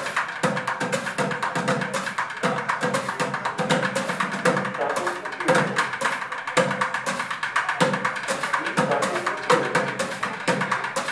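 Live bucket drumming: sticks beat a fast, dense rhythm on upturned plastic buckets, metal trash cans and cymbals.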